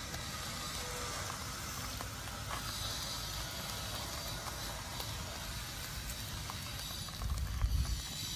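Wood fire under fish grilling on a wire rack, a steady hiss with a few faint crackles. A low rumble swells briefly near the end.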